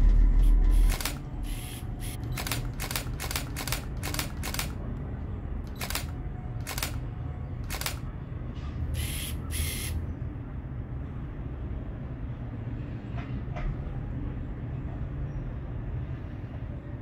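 Camera shutter clicks, about a dozen in an irregular series, some in quick pairs, stopping about ten seconds in. A low steady rumble runs underneath.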